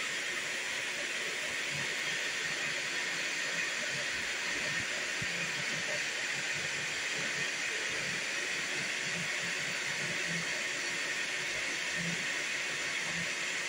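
High-speed 3D printer printing a benchy: a steady, fairly loud rush of air from its large cooling blower, with short irregular low buzzes from the fast-moving print head and bed axes.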